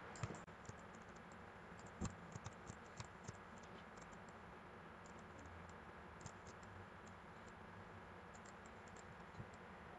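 Near silence with faint, scattered clicks from working a computer, a few in quick succession about two to three seconds in and a few more later.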